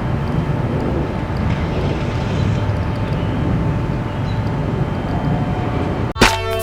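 Steady low rumbling background noise, then music with a heavy bass and drum beat cuts in abruptly near the end.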